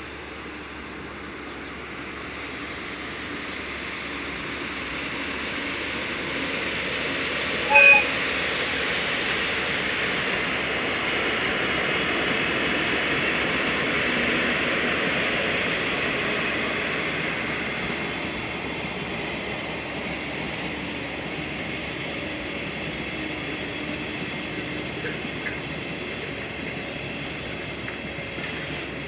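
Two DD51 diesel-hydraulic locomotives hauling a long-rail work train pass at a distance, engines and wagon wheels running in a steady rumble that swells and then slowly fades. A short horn toot sounds about eight seconds in.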